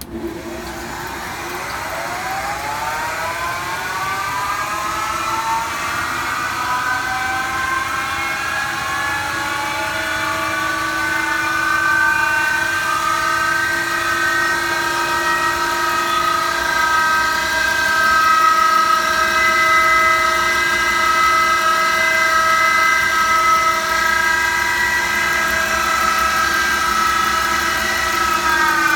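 Leblond No. 1 tool and cutter grinder's 110-volt electric motor switched on, its whine rising in pitch over the first few seconds as it spins up, then running at a steady speed, and starting to drop in pitch right at the end.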